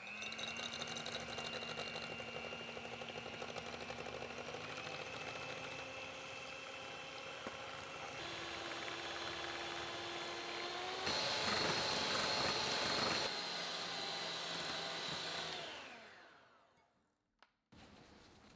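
Electric hand mixer running, its beaters whipping hot gelatin-sugar syrup into marshmallow in a plastic bowl. The motor's pitch rises about eight seconds in, rises again and gets louder around eleven seconds, then fades out a couple of seconds before the end.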